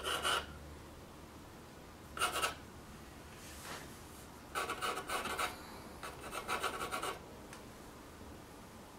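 Graphite pencil scratching across a canvas as a sketch is drawn: four bursts of strokes, a short one at the start, another about two seconds in, then two longer runs of quick strokes of about a second each.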